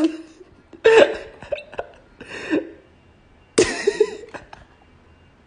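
A woman's voice without words: three short bursts, about a second in, after two seconds, and at three and a half seconds, the last the longest.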